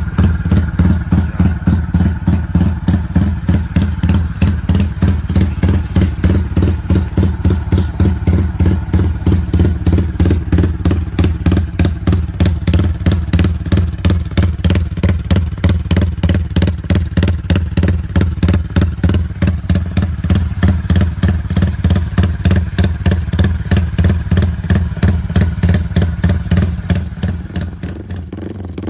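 Yamaha Y15ZR's single-cylinder 150 cc four-stroke engine running steadily with an even, pulsing exhaust beat. It drops somewhat in loudness near the end.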